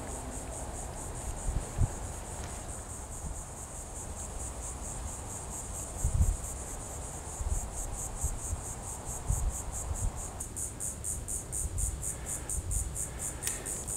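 Insects trilling high and steady with a rapid, even pulse, like a chorus of crickets or katydids. A few soft low thumps sound underneath.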